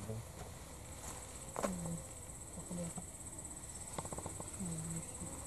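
Quiet outdoor ambience with a faint, steady high-pitched insect buzz and a few short, faint low sounds.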